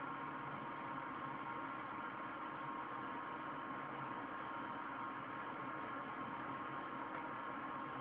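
Steady background hiss with a faint, even hum; no distinct sounds stand out.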